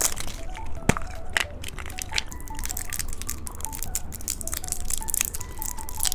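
Plastic candy packaging crinkling and crackling as it is handled and opened, with irregular clicks and one sharper crack about a second in. Soft background music plays underneath.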